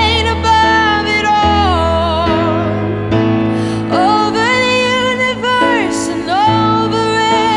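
Worship music: a singer holds long notes with vibrato, gliding between them, over sustained band accompaniment with low bass notes that change every second or so.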